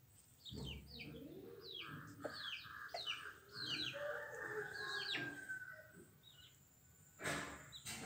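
Birds chirping: a run of short, high, falling chirps, a few a second, with a lower, rapid pulsing call through the middle. A short rustling noise comes near the end.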